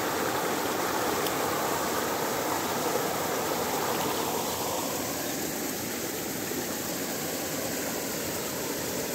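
Steady rush of flowing floodwater, easing slightly about halfway through.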